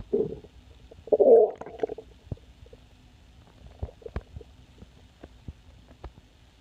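An empty, hungry stomach growling: a short gurgle at the start, then a louder rumbling growl about a second in, followed by a few faint pops and gurgles.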